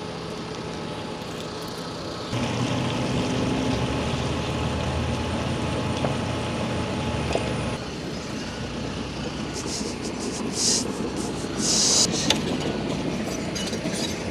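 A vehicle engine running steadily, louder for several seconds from about two seconds in, with a few short hisses near the end.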